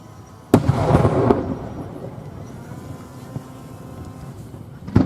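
Fireworks shell bursting with a sharp bang about half a second in, followed by about a second of crackling as it fades. A second bang and crackle follow near the end.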